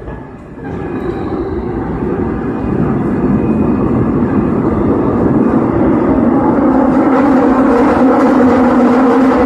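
Seoul Metro Line 8 subway train running in a tunnel: the train noise swells about a second in and keeps building. A steady hum of several tones from the running gear grows strongest in the second half.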